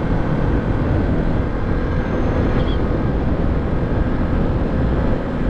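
2014 Suzuki DR650's single-cylinder engine running at a steady cruise, mixed with wind rushing over the microphone.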